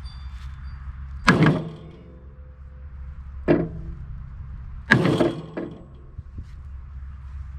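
Three heavy hammer blows on metal, about two seconds apart, each ringing briefly, with a lighter knock after the last: knocking off a worn bearing, which is in bad shape.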